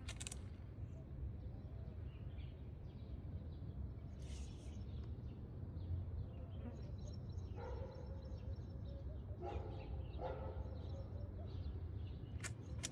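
An animal's short calls, twice, about eight and ten seconds in, over a steady low rumble, with faint high chirps in the background.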